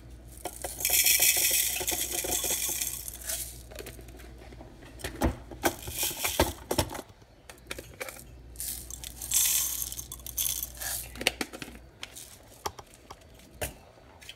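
Hard candy sprinkles poured into the plastic bowl of a mini food chopper: a dense pattering rattle starting about a second in and lasting two or three seconds, and a second shorter pour around ten seconds, with scattered clicks and taps of the container and bowl being handled.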